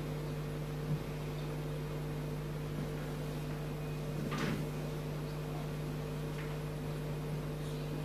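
Steady electrical mains hum with faint room noise. A soft click comes about a second in, and a brief faint rustle a little past halfway.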